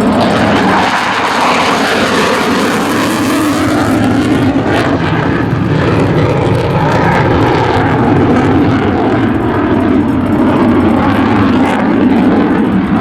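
Panavia Tornado's twin RB199 turbofan jet engines at take-off power, loud and continuous, with a whooshing tone that sweeps slowly up and down as the jet passes.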